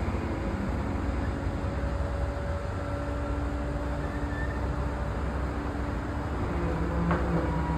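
Heavy diesel construction machinery running steadily: a low rumble with a steady hum over it, and a faint click about seven seconds in.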